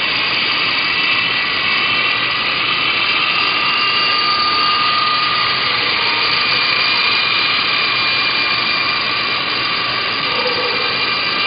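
Walkera LAMA 400 radio-controlled coaxial helicopter in flight: the high whine of its electric motors and gearing over the rush of the rotors. The whine holds steady, with small shifts in pitch.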